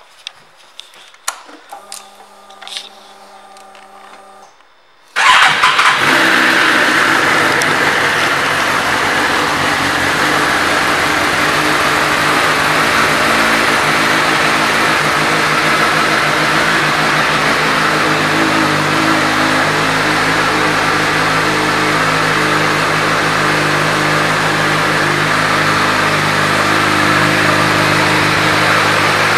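2013 Suzuki GSX-R1000's inline-four engine started about five seconds in, after a few clicks and a short hum. It then idles steadily.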